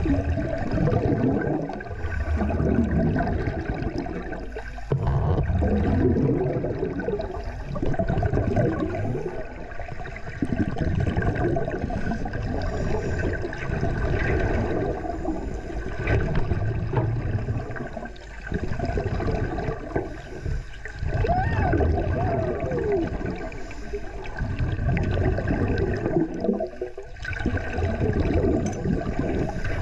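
Underwater water noise picked up by the camera: a low rumbling, gurgling slosh of moving water and bubbles that swells in surges of a few seconds, with brief dips between them.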